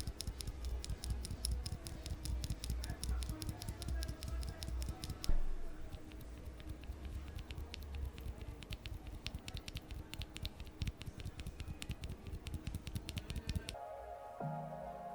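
Rapid, dense clicking of plastic mechanical keyboard switches, many clicks a second, over background music; the clicking stops near the end and only the music is left.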